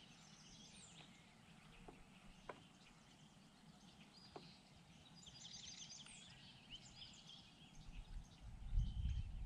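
Quiet open-air background with faint songbirds chirping and trilling, a busier run of trills about halfway through, and a few soft clicks. A low rumble builds near the end.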